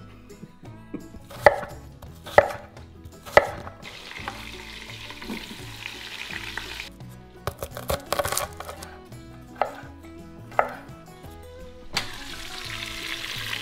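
Knocks and clunks of an Instant Pot electric pressure cooker being set down and handled on a stone counter. Near the end butter drops into the hot inner pot on the sauté setting and begins to sizzle.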